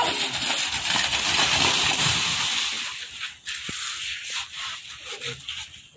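Pair of racing buffaloes galloping through a water-filled kambla track, churning up a loud rush of splashing water that fades out after about three seconds, followed by a few faint knocks.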